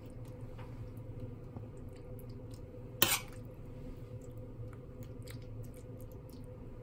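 A metal spoon scooping and scraping soft cooked filling in a frying pan and pressing it into a hollowed round courgette: small soft squishes and clicks, with one short, louder scrape about three seconds in. A steady low hum sits under it all.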